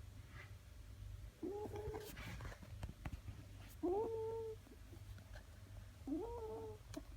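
Sleeping six-week-old Dandie Dinmont Terrier puppy making a short whiny snore three times, evenly spaced about two and a half seconds apart in time with its breathing. Each one rises quickly in pitch and then holds.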